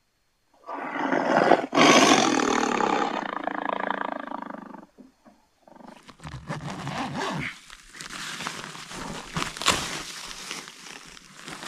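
A big cat's roar, one long loud call lasting about four seconds. From about six seconds in comes fainter rustling and crunching of tent fabric and snow as someone crawls out of the tent.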